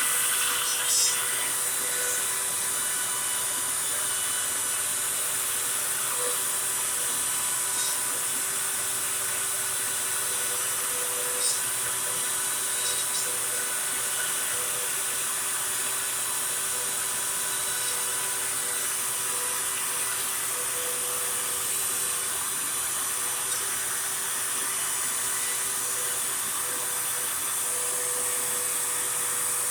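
CNC router spindle running steadily as the bit cuts a wooden board, together with the vacuum hooked up for dust collection, making an even, high-pitched machine noise with a few faint ticks.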